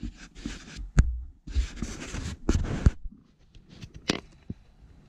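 Handling noise: a few sharp knocks with short stretches of rustling and brushing between them, quieter ticks near the end.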